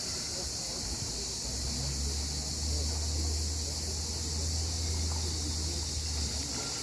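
Steady high-pitched chorus of cicadas, with a low rumble underneath from about a second and a half in until near the end.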